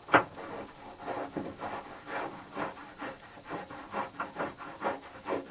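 Metal lathe parts being handled: an irregular run of short scrapes and rubs, several a second, with light knocks.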